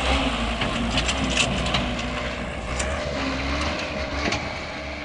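Dump truck's engine running under load with a steady low rumble while the stuck truck is worked out of mud, with scattered clicks and crunches.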